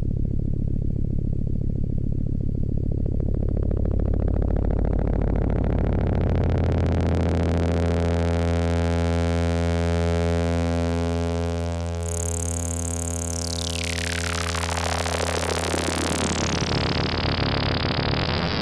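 Low, steady analog synthesizer tone run through a Behringer System 100 121 Dual VCF filter. The filter opens slowly over about twelve seconds, so the tone grows brighter. Then a resonant peak sweeps sharply down, giving a falling whistling glide over the held note.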